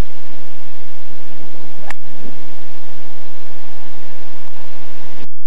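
Steady loud rushing hiss, with one sharp click about two seconds in as a golf club strikes the ball. The hiss drops away suddenly near the end.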